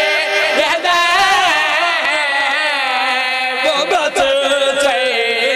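Men's voices singing a drawn-out devotional chant through microphones and loudspeakers, the melody wavering on long held notes.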